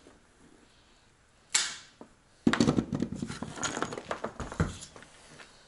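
Handling of heavy-gauge electrical cable and hand tools on a wooden workbench. There is one short sharp sound about one and a half seconds in, then a couple of seconds of clattering and rattling.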